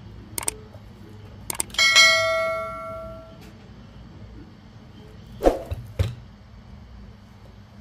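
A few sharp mouse clicks, then a single bell ding about two seconds in that rings out for about a second and a half: the sound effect of an on-screen subscribe-button animation. Two short knocks follow near the end, from the phone being handled on the bench.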